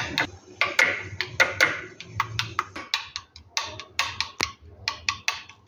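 Metal spoon stirring green chutney into yogurt in a glass bowl, tapping and clinking against the glass in quick, irregular strokes, several a second.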